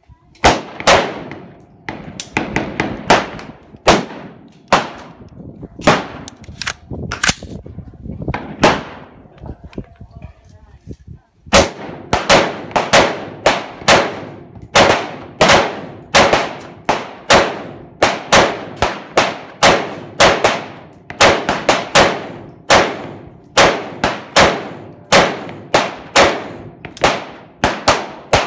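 AR-15 rifle firing shot after shot in semi-automatic, each shot a sharp crack with a short ringing tail, up to about two shots a second. Firing stops for about two seconds partway through, then resumes faster.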